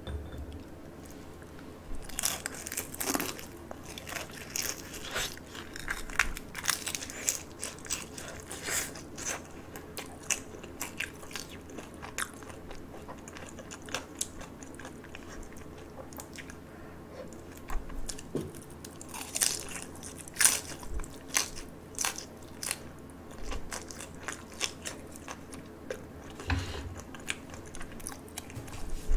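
Crunching and chewing of crisp fried dumplings: sharp, irregular crackles of the fried skin as it is bitten and chewed, starting a couple of seconds in, with heavier bursts of crunching about twenty seconds in and again near the end.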